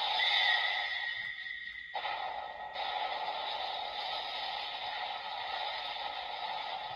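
PDX Laser Raise Riser toy playing a steady looping electronic sound effect through its small speaker. A high steady tone in it drops out about two and a half seconds in.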